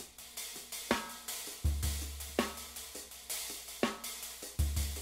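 Sampled acoustic drum kit from the Drum Tree library playing a slow groove: hi-hat ticking throughout, a snare backbeat about every second and a half, and two deep kick drum hits with a long low boom.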